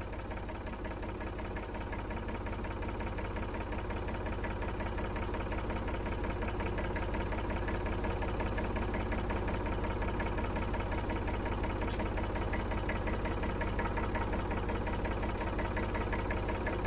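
1965 Ford 3000's three-cylinder diesel engine running steadily, just revived after sitting unused for over ten years, growing gradually louder while the rear power take-off is engaged.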